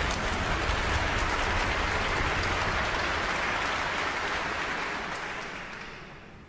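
Concert-hall audience applauding, the applause dying away over the last two seconds.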